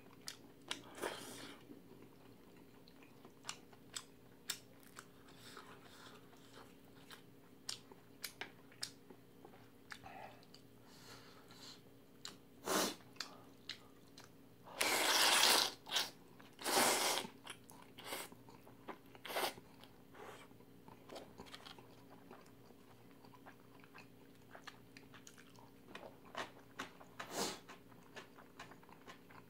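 Close-up eating sounds: chewing and mouth clicks throughout, with a couple of loud slurps of jjamppong noodles about halfway through.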